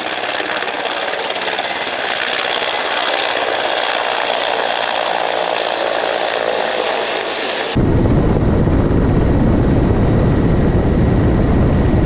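Mi-8 helicopter rotors and turbines running as it flies overhead with a water bucket slung beneath. About eight seconds in it cuts to the helicopter heard on board at the open door, a louder, deeper rumble of rotor and airflow.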